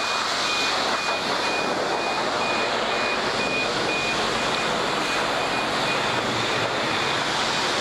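Self-serve car wash pressure wand blasting water onto a dirt bike's front wheel and fork: a steady, loud hissing spray. A faint high beep repeats at an even pace the whole time.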